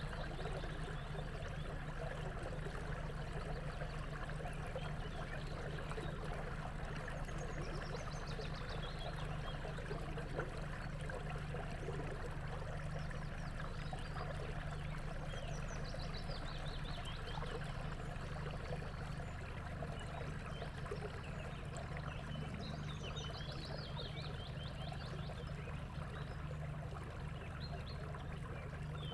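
Wetland ambience: birds singing in short phrases now and then, over a steady low hum and a dense even background.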